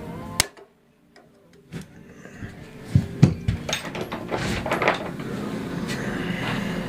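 A sharp click, then a brief drop almost to silence, followed by a run of clinks and knocks from hand tools being handled against metal parts of a lawnmower.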